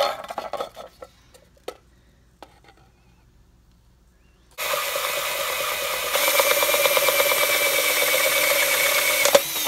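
A drill spinning a 3/4 inch hole saw through the black plastic rear cover of a Porsche Boxster headlight: it starts abruptly about halfway in and cuts steadily for about five seconds before stopping. Before it, a few light clicks as the plastic cover is set down on a metal brake rotor.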